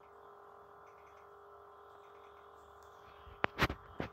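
Toy lightsaber's electronic idle hum, a steady buzzing tone from its small speaker. A few sharp clicks come about three and a half seconds in.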